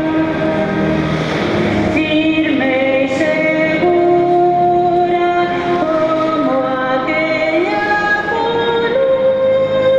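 Music with a slow melody of long held notes that step from pitch to pitch.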